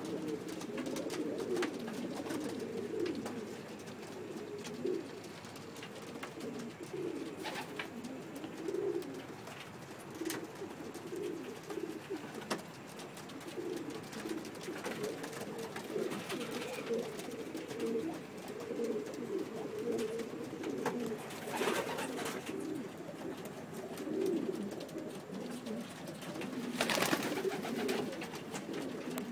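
Young racing pigeons cooing, a continuous overlapping low warble, with a few short flurries of wing flaps, the loudest near the end.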